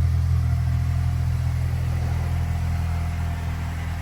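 Car engine idling steadily, a low even hum that eases off slightly over the few seconds.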